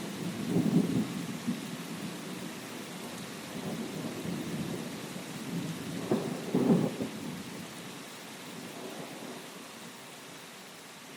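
Rain falling steadily with thunder rumbling, loudest in two swells about a second in and about six and a half seconds in; the whole storm grows quieter toward the end.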